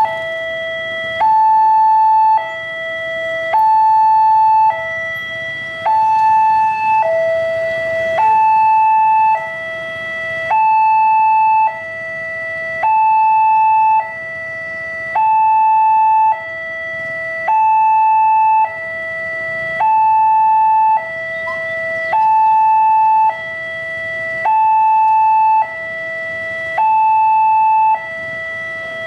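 Railway level crossing warning alarm sounding a steady two-tone hi-lo signal, switching between a higher and a lower note about every second and a quarter, the higher note louder. It is the warning that a train is approaching and the barriers are down.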